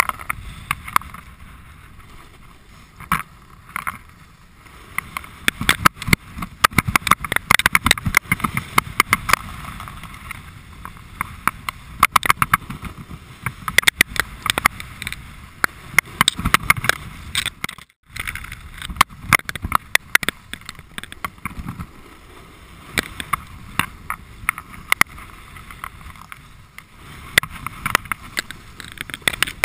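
A snowboard sliding and carving down a hard-packed, groomed slope, picked up close by a camera on the rider: the board scraping over the snow with a low rumble and a rapid chatter of sharp clicks and knocks. The sound cuts out for a moment just past halfway.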